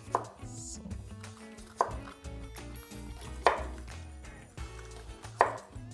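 Kitchen knives cutting bell pepper and cucumber on a cutting board: four sharp knocks of the blade on the board, about one every second and a half to two seconds, over soft background music.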